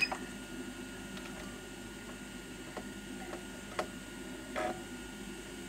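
Faint, steady low electrical hum with a few small ticks, and a short high beep-like click right at the start.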